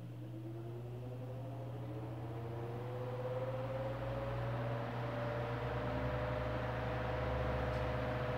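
Arno Vitality 40 cm fan's round-stator motor, with no capacitor, running up on speed 3: a steady electrical hum under a whine that rises slowly in pitch and grows gradually louder as the blades gather speed. The shaft runs freely in its bushings with no play.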